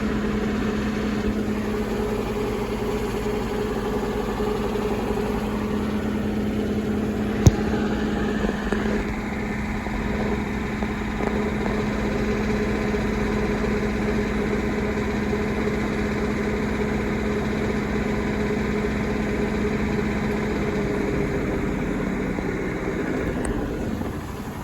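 Washing machine rumbling very hard: a loud, steady mechanical drone with a low hum. A single sharp click about seven seconds in, after which the sound turns to a brighter whirring hiss, and it eases off near the end.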